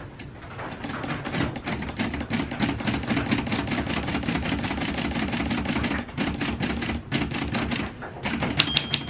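1950s Olympia Deluxe manual typewriter being typed on fast, a steady run of key strikes, with a short bell ring near the end as the carriage nears the end of the line. The machine is working, though it still needs oiling.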